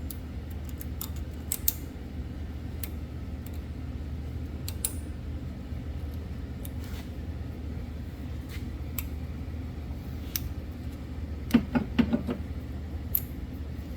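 Light metallic clicks and taps of brake pad clips and caliper parts being handled and fitted. The clicks are scattered, with a brief cluster near the end, over a steady low hum.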